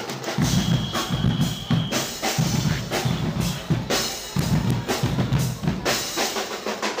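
Costumed carnival drum band beating large bass drums and snare drums in a loud, driving rhythm.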